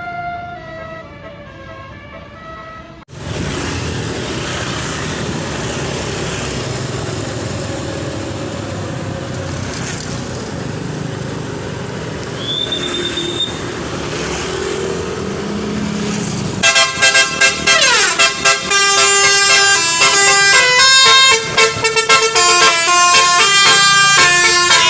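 Steady road-traffic noise follows a few seconds of quieter melodic tones. About two-thirds of the way in, a bus's Basuri 'telolet' air horn bursts into a loud tune of quickly changing, stepped notes.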